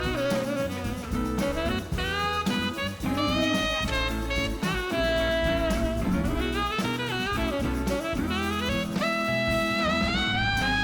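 Upbeat jazzy background music with saxophone-like melody lines over bass and drums.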